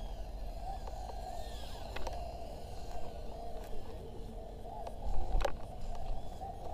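Eachine E010 micro quadcopter's tiny motors buzzing in flight, the pitch wavering up and down as the throttle changes. There is a sharp click about five and a half seconds in.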